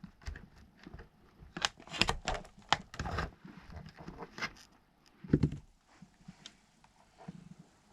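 Light clicks and rattles of hands handling a radio-controlled car's plastic body and fitting its metal body clips, busy for the first few seconds, then sparser, with one louder knock about five seconds in.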